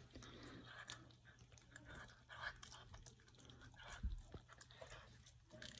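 Serval biting and chewing on a raw whole quail held in a hand: faint crunching and tearing with scattered clicks, and a low thump about four seconds in.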